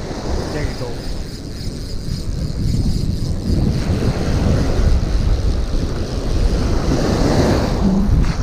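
Wind buffeting the microphone over the wash of breaking surf.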